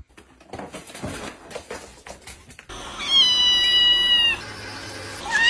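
A wet white kitten in a bath meowing: one long, loud, steady meow about three seconds in, with the next meow beginning at the end. Before it, a few faint knocks and rustles.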